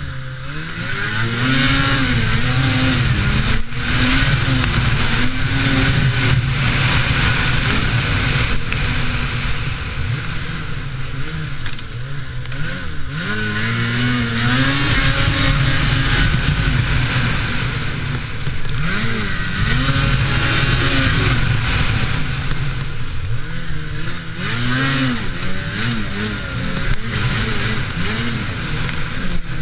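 Lynx Rave RE 850 E-TEC snowmobile's two-stroke twin engine under way, its pitch rising and falling over and over as the throttle is opened and eased off, with a steady rush of noise underneath.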